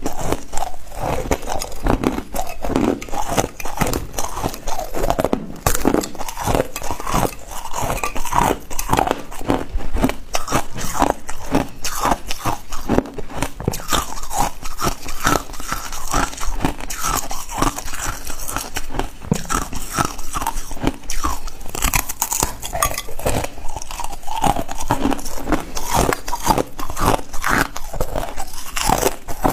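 Ice being bitten and chewed: a continuous run of quick, crackly crunches as chunks of ice break between the teeth.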